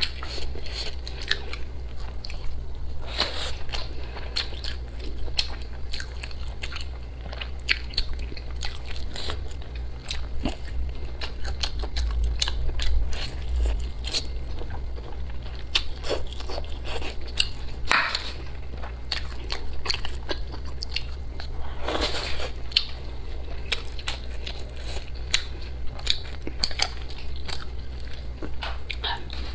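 Close-miked chewing and biting of braised pork rib meat, with many short wet mouth clicks and a few longer sucking noises, over a steady low hum.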